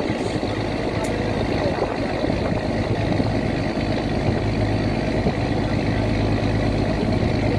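A boat's engine running steadily with a low, even hum, over a continuous rush of water.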